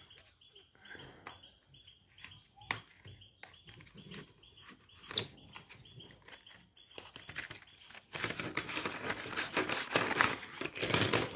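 Paper wrapper of a pencil packet being torn open and crinkled by hand, with faint scattered rustles and small clicks. About eight seconds in it turns to a louder, dense rustling and clicking as the pencils are taken out of the packet.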